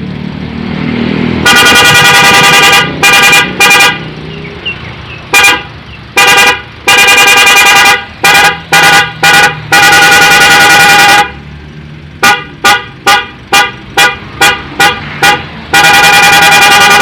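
Aftermarket 'prikitiw' car horn sounded in a series of blasts at a steady pitch: long held blasts mixed with short toots, including a quick run of about eight short toots before a final long blast.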